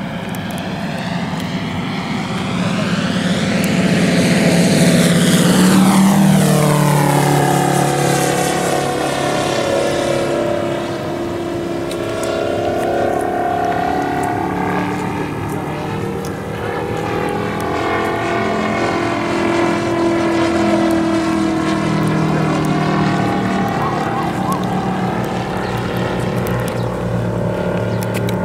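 Quarter-scale F4U Corsair model's MOKI 250cc five-cylinder radial petrol engine and propeller running in flight. It swells to its loudest as the plane passes closest about five seconds in, the pitch dropping as it goes by, then rises and falls gently in pitch as it keeps circling.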